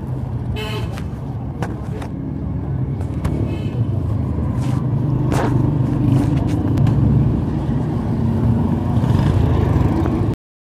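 Honda CD70 motorcycle's small single-cylinder four-stroke engine running while riding in traffic, with road noise, a few short clicks and a brief high tone about half a second in. It gets louder after a few seconds, then cuts off suddenly near the end.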